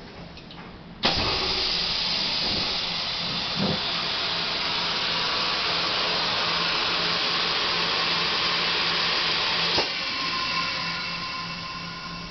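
Macpi sublimation heat transfer press letting out a steady rush of air hiss as it works. The hiss starts suddenly about a second in and cuts off sharply near the end, over a low steady hum.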